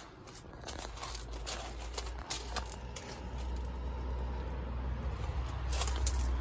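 Handling noise from the hand-held camera: scattered short scrapes and clicks, thickest near the end, over a steady low rumble.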